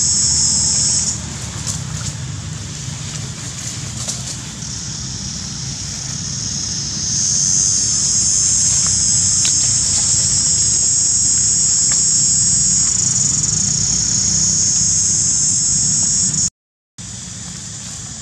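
Steady high-pitched drone of insects over a low rumble. The drone stops about a second in, returns about five seconds in and grows louder about seven seconds in; all sound cuts out for about half a second near the end.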